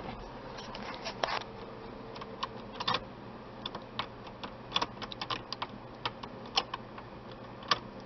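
Irregular light clicks and ticks from the replacement ignition switch and its actuator on a 1998 Chevrolet S-10 steering column as the switch is worked through its positions by hand. The sharpest clicks come near the middle and near the end.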